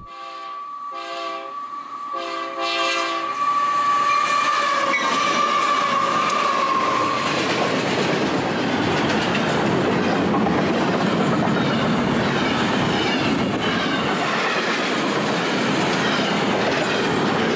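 Diesel freight locomotive's multi-tone air horn sounding three blasts, the third longer, as the train approaches a grade crossing. A steady high tone runs on after the horn and fades out about seven seconds in. The loaded freight cars then roll close past, their wheels rumbling and clattering on the rails at a steady level.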